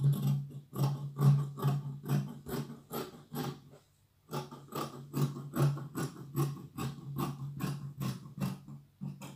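Scissors snipping through fabric along a cutting line, a steady run of short cuts about three a second, with a brief pause about four seconds in.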